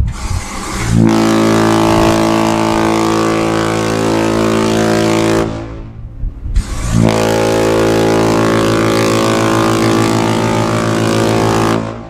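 Queen Mary 2's ship's horn sounding two long, deep blasts of about four and a half seconds each, with a short gap between them.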